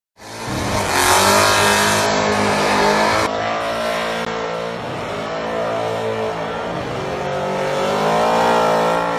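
Magnuson-supercharged LS3 V8 in a Holden Commodore drift ute revving hard through a burnout, its pitch repeatedly falling and climbing again as the rear tyres spin.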